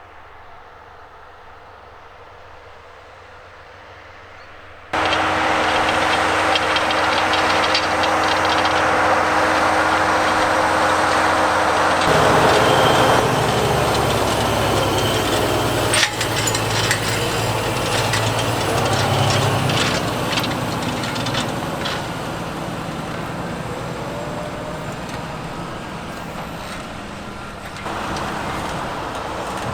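Fendt 936 tractor engine running under load while pulling an eight-furrow Lemken plough. It is faint at first, jumps suddenly louder about five seconds in, then fades gradually, with another sudden step near the end and a single knock midway.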